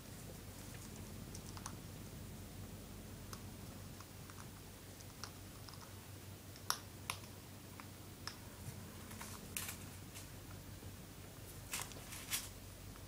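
Eclectus parrot nudging and nibbling a soft toy ball with its beak: faint, scattered sharp clicks, with a few louder ones in the second half, over a low steady hum.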